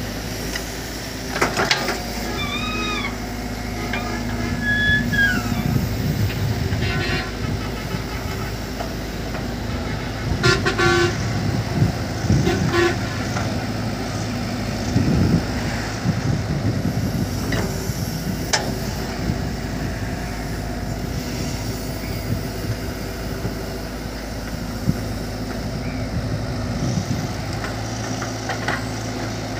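A Cat 313 tracked excavator's diesel engine runs steadily as it loads a dump truck, with clatters of sand and stones dropping from the bucket into the truck's steel bed. A vehicle horn toots briefly twice a few seconds in.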